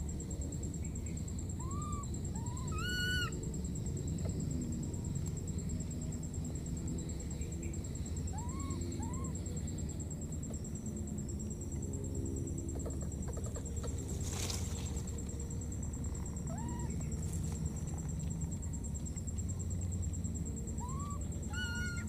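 Baby monkey giving short, arched coo-like calls, a few at a time, with a sharper, shrill call about three seconds in and another near the end. A steady high whine and a low rumble sit underneath.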